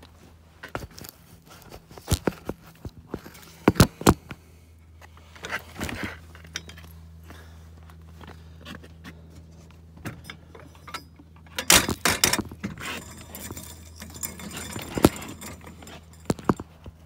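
Irregular sharp clicks, knocks and metallic jingling from handling gear and moving on the ice around an ice-fishing tip-up, over a low steady hum, with a busier cluster of knocks about two-thirds of the way through.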